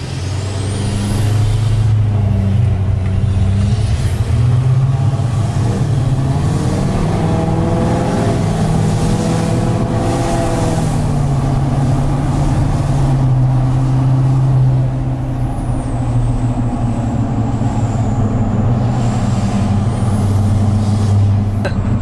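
2020 Chevrolet High Country's L5P Duramax 6.6 L V8 turbo-diesel accelerating uphill, heard from inside the cab. The stock turbo gives a high whistle that climbs and falls several times with the throttle over the engine and its tuned, deleted 5-inch straight-pipe exhaust. The aftermarket engine-bay piping brings the whistle out.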